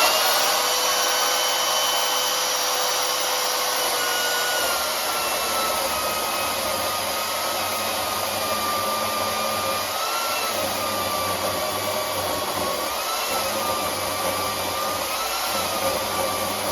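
Chainsaw on an Alaskan-style chainsaw mill running at full throttle while cutting through a camphor laurel log. Its pitch sags slowly at first, then dips and wavers a few times as the chain takes the load.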